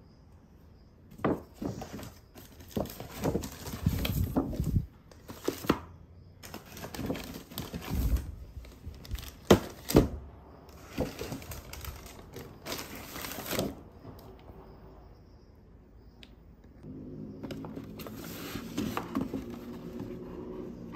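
Plastic packaging and tissue paper crinkling and rustling in irregular bursts, with a few knocks, as wrapped knitwear packages are handled and gift boxes opened. Near the end a steadier low hum sets in.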